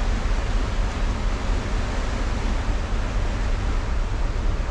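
A container ship passing close by: a steady, deep engine rumble with a hiss of water from its bow wave.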